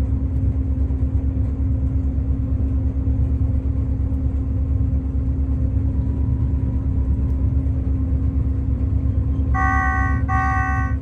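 Combine harvester running steadily: a loud, low, fast-pulsing engine drone with a steady hum over it. Near the end there are two short electronic warning beeps.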